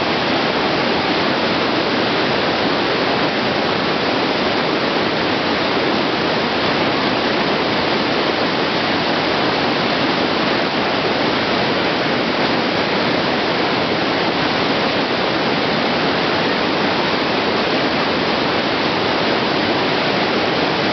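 The Rhine Falls in heavy flow, a huge volume of water plunging and crashing in a loud, steady rush that holds without a break.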